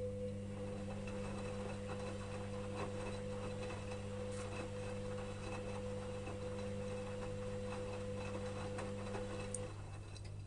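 Electrolux EWS 1045 front-loading washing machine running mid-cycle: a steady motor hum with faint splashing and clicking of the wash, the hum cutting off about nine and a half seconds in while a lower mains hum carries on.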